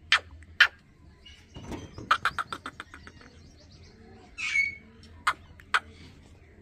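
Bird calls: sharp single chirps near the start and again near the end, a quick chattering run of notes about two seconds in, and a harsher, longer call a little past the middle.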